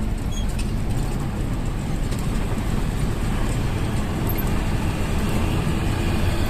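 Motor vehicle running with a steady low rumble and road noise, growing slightly louder over the few seconds.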